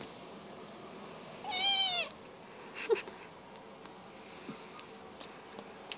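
A kitten meowing once, a single call of about half a second whose pitch rises and then falls, about a second and a half in.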